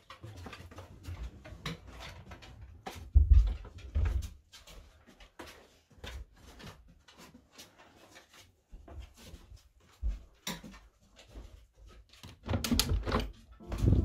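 Footsteps and a dog's claws clicking on a wooden floor, mixed with scattered knocks, with two heavier thumps about three and four seconds in. Near the end comes a loud cluster of clunks and rattles as a window is unlatched and opened.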